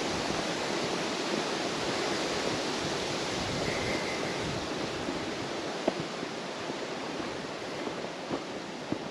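Steady rushing noise of wind through trees, with a few sharp clicks in the second half.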